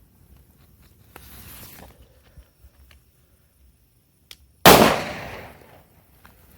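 A firecracker (bombinha) goes off with a single loud bang about four and a half seconds in, its echo dying away over about a second. A brief hiss comes a second or so earlier.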